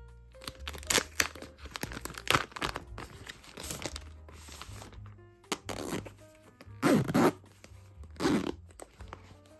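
Packaging being crinkled and torn open while a new camera is unboxed: irregular rustling and tearing, with several louder crackles, over soft background music.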